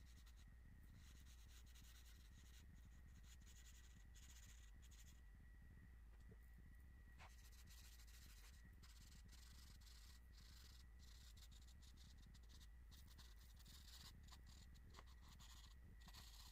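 Faint scratching of charcoal stroked across drawing paper, in runs of quick hatching strokes with short pauses between them. A faint steady hum lies underneath.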